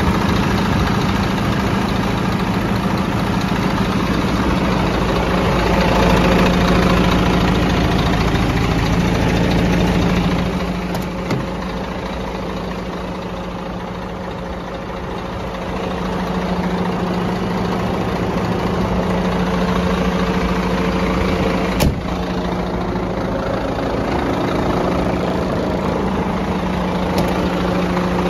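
Scania P124L 420 truck's 12-litre straight-six diesel idling steadily, with a single sharp click a little over twenty seconds in.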